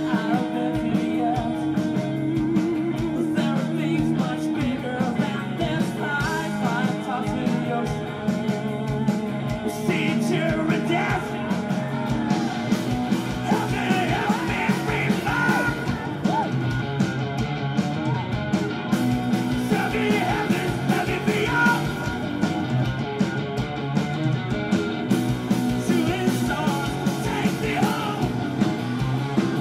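Rock band playing live with electric guitars, bass and drums over a steady beat. A singer's vocal phrases come in from about ten seconds in and recur through the rest.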